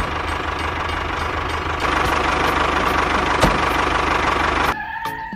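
Tractor diesel engine running with a steady low knocking beat. It cuts off abruptly near the end.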